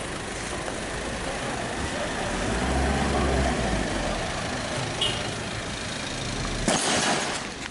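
Road traffic and a vehicle engine running close by, with the low engine rumble swelling about three seconds in. Near the end comes a sudden loud crackling burst.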